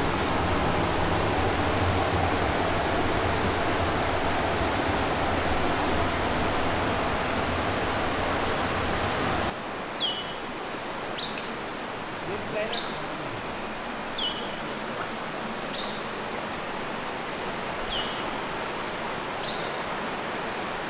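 Rushing river water close by, then an abrupt cut about nine seconds in to a steady high insect drone of the rainforest, with a bird giving a short call every second or two.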